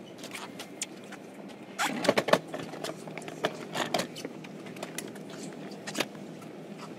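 Cabin of a JR Kyushu 305 series electric train car, quiet, with no motor whine or rail-joint rhythm: a low steady hum with scattered small clicks and rustles. There is a cluster of knocks about two seconds in and a single sharp click about six seconds in.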